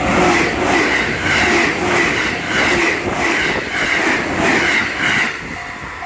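Train passing close by over a level crossing at speed, its wheels clattering over the rail joints in a regular beat of about two a second. The train noise eases near the end, and the crossing's warning bell can be heard ringing again.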